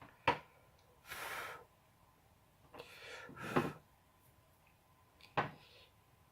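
Close handling noises of small parts and tools: a sharp click near the start and another about five seconds in, with two short breathy rushes in between, like sniffs or puffs of breath over the work, over a faint steady hum.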